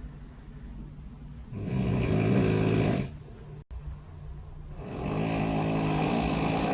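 A person snoring in a bedside phone recording played back: two long snores, the first about a second and a half in and the second from about five seconds in, over a steady low background hum, with a split-second dropout between them.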